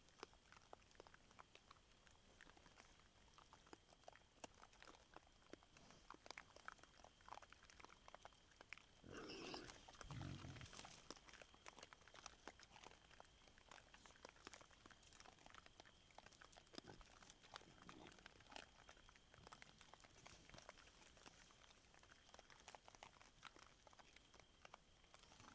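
Wild boar crunching maize kernels at a feeder: a steady run of short, faint crunches, with one louder, lower sound lasting a couple of seconds about nine seconds in.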